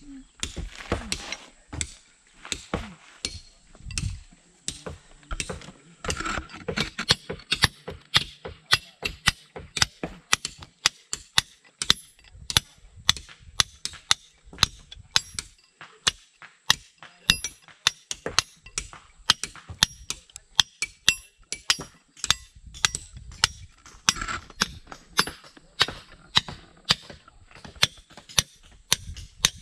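Repeated sharp strikes of hand-tool work, irregular at first and then steady at about three a second for most of the stretch.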